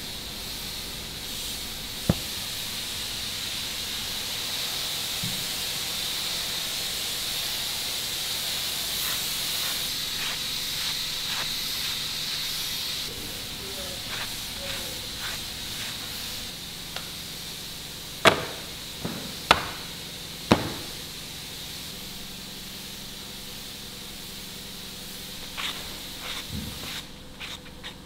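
Sandpaper rubbed by hand along the edges of a stack of wooden panels, a rasping hiss. Past the middle come three sharp knocks in quick succession as the boards are handled, with lighter clicks near the end.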